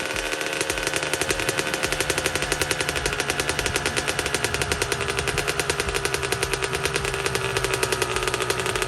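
2005 Kawasaki KX125's 125cc single-cylinder two-stroke engine running steadily, with a rapid, even popping beat from its exhaust.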